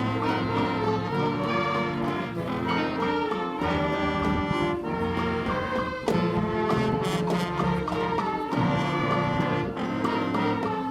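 A middle school concert band playing a wind band piece in sustained full chords. A louder entry comes about six seconds in, with a few sharp percussion strokes.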